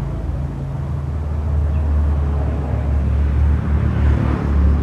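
Motorcycle engine, an old diesel converted to run on petrol, running with a deep low hum. It gets louder partway through and turns uneven and choppy near the end.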